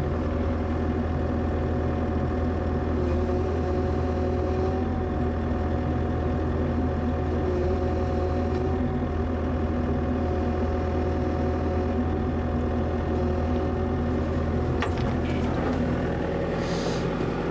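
Bobcat E55 mini excavator's diesel engine running steadily, with a steady higher whine over the low hum, as the hydraulics slowly curl the arm and the attached brush cutter through their range to check the hose runs. A short click comes near the end.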